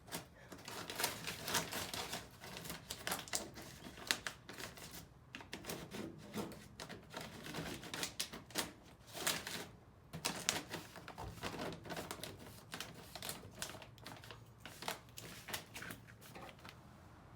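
Plastic leaf-bag sheet rustling and crinkling, with quick irregular scratchy strokes, as a floor-pan template is traced onto it.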